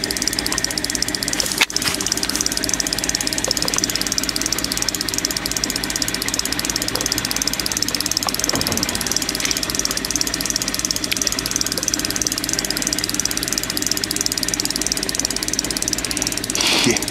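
Outboard motor running steadily at low speed with a fast, even beat. There is a sharp click about two seconds in and a brief higher sound near the end.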